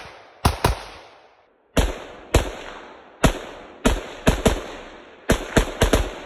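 AR-style pistol being fired in a rapid, uneven string of about a dozen shots, several coming in quick doubles, each shot trailing off in an echo.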